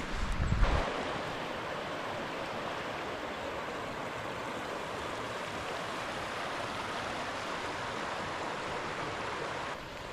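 Cedar Creek running, a steady rush of water. A low rumble sits under it during the first second.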